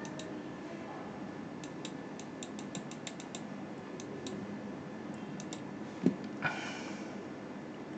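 Scattered light clicks of a computer mouse and keyboard, some in quick runs, over a steady faint hum. About six seconds in comes a dull thump, then a softer knock with a brief rustle.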